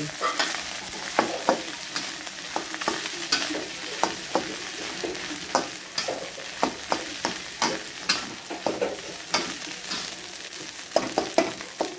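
Fried rice sizzling in a wok while a metal spatula stirs and tosses it, scraping and knocking against the pan many times at irregular intervals over a steady frying hiss.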